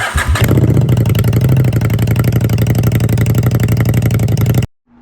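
Honda Shadow VLX 600's V-twin engine running with an even, rapid beat, then cutting off suddenly near the end.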